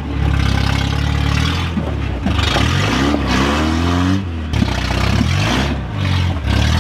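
Lifted pickup truck's engine revving up and down in low gear as it crawls over rocks, loud because it runs on an open header with its exhaust torn off. A sharp knock about four and a half seconds in.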